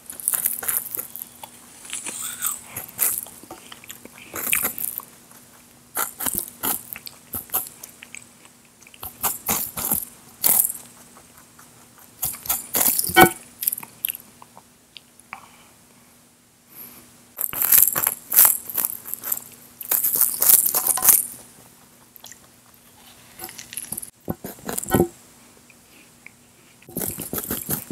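Crisp apple crunching: a raw red apple being bitten into and chewed close to a microphone, in bursts every two to three seconds.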